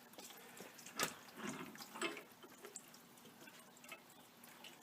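Water dripping and trickling out of the opened plumbing at a water pressure regulator, with a sharp clink about a second in and a lighter knock a second later.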